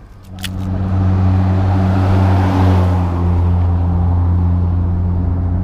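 A motor vehicle's engine running with a steady low hum, starting with a few sharp clicks just after the start. A swell of broader rushing noise peaks about two to three seconds in and then eases, as of a vehicle passing close.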